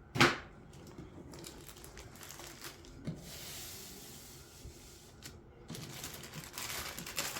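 Packaging being handled: a sharp rustle or knock about a quarter second in, then crinkling and tearing-like rustles, livelier near the end.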